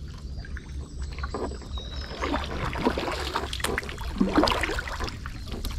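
Kayak paddle dipping and splashing in the water, with irregular splashes and light knocks against the boat.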